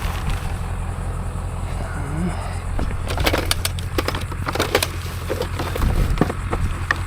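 Steady low vehicle rumble, with a run of sharp clicks and clanks about three to five seconds in and a few more near the end.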